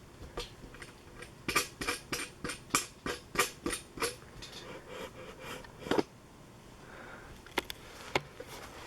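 Handling noise: a quick run of clicks and knocks, about three a second, then a louder knock about six seconds in and two sharp clicks near the end.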